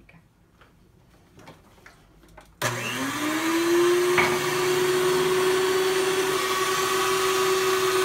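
Electric hand mixer on its stand switched on about two and a half seconds in: the motor whine rises in pitch for about a second as it spins up, then runs steadily while beating cake batter. A few faint knocks before it starts, and one sharp click shortly after.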